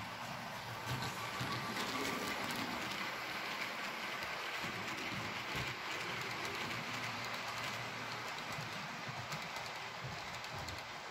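H0-scale model Glacier Express train running along the layout's track: a steady rolling and motor hum with a fast sprinkle of small clicks from the wheels on the rails, growing slightly fainter toward the end.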